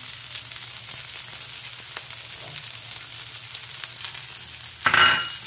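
Fried rice sizzling in a hot wok, a steady frying hiss with a few faint clicks, and one short, much louder burst near the end.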